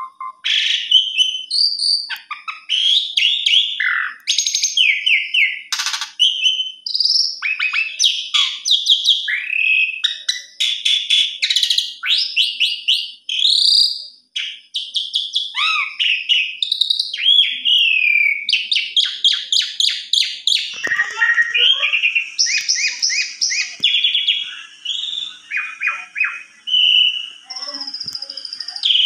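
Asian pied starling (jalak suren) singing a long, varied song of rapid trills, whistled glides and chattering notes, almost without a break. A faint steady hum joins in the background about two-thirds of the way through.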